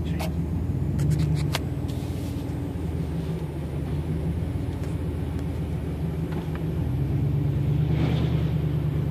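Steady low engine and road hum of a vehicle, heard from inside the cabin while driving through standing floodwater. A few sharp clicks about a second in, and a short hiss near the end.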